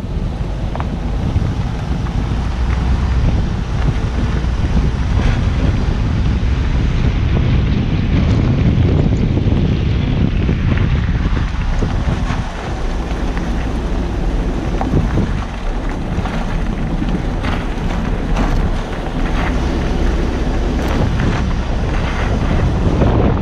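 Hummer H2 on the move, heard from a camera mounted near a front wheel: wind buffeting the microphone over a low rumble of tyre and road noise, with scattered sharp clicks.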